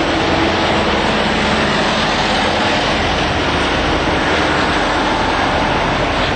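Queensland Rail freight train's wagons rolling past close by: a loud, steady noise of steel wheels running on the rails.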